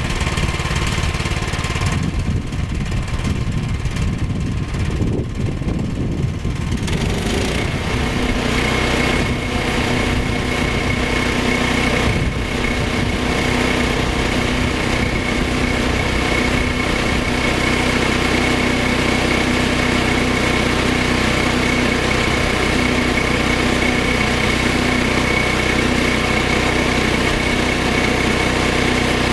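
Small gas engine of a Woodland Mills HM122 portable band sawmill running steadily while the band blade makes a cut through green lumber. A steady high whine joins the engine about seven seconds in and holds.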